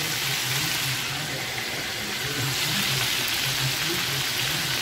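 Breaded chicken pieces deep-frying in hot oil: a steady sizzle, with a low hum underneath.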